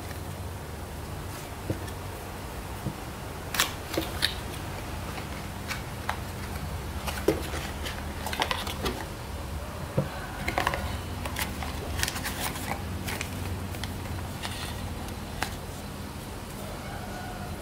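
Small cardboard box being opened and handled: scattered taps, scrapes and rustles of the flaps and a folded paper manual, over a steady low hum.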